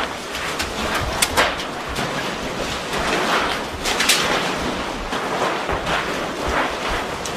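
Hurricane wind and heavy rain blowing hard on the microphone, with sharp metallic clanks and scrapes as loose sheet-metal roofing is blown across the pavement. The loudest clanks come about a second in and again at about four seconds.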